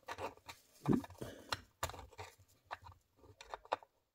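Handling noise of a printed shelf panel being pushed into place inside a small wooden model building: irregular light clicks, taps and scrapes, with a duller thump about a second in.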